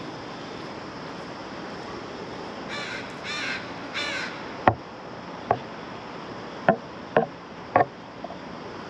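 A crow cawing three times in quick succession, followed by five sharp, irregularly spaced knocks, which are the loudest sounds.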